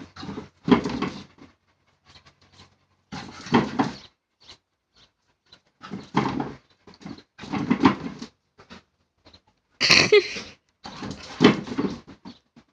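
Puppy growling and barking in short bursts, about six of them a second or two apart, with one higher-pitched bark about ten seconds in.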